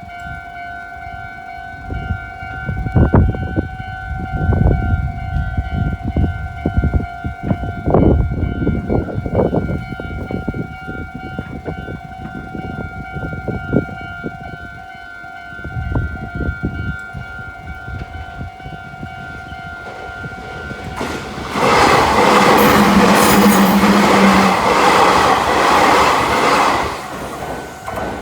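Japanese level-crossing warning bell ringing steadily while a train passes, its wheels thumping and clattering over the crossing for much of the first half. About three quarters of the way in, a much louder rush of passing train noise lasts about five seconds before dying away.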